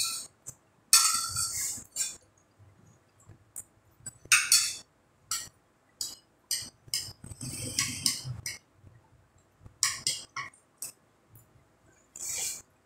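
Cutlery clinking and scraping against plates during a meal, in a series of short, irregular sounds with pauses between them.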